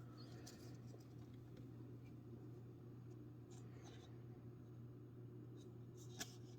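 Near silence with faint, scattered rustles and light ticks of a Pokémon booster pack and trading cards being handled, over a steady low hum.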